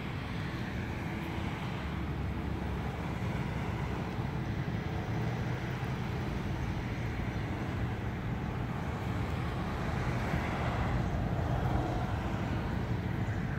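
Steady low rumble of outdoor street noise, with no distinct events; it swells slightly in the middle range about ten seconds in.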